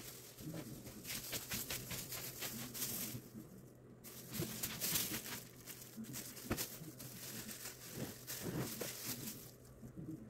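Irregular rustling and clicking, with no steady rhythm: handling noise.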